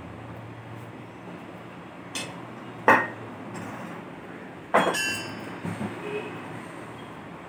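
Steel tyre lever knocking against the steel wheel rim of an auto-rickshaw tyre as the bead is prised off. There are two sharp metallic clanks about two seconds apart, the second ringing briefly, with a lighter knock before them and a few small taps after.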